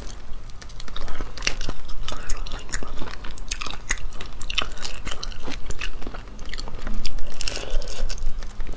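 Close-miked biting and chewing of spicy whole crayfish, with a run of sharp crackling clicks as the shells are bitten and pulled apart by hand.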